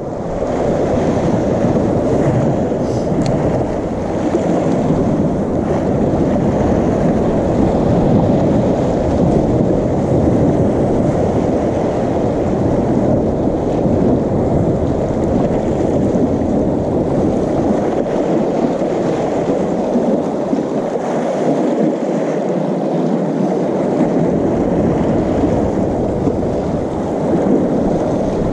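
Steady rushing of wind on the microphone mixed with sea washing against the harbour rocks, loud and even throughout.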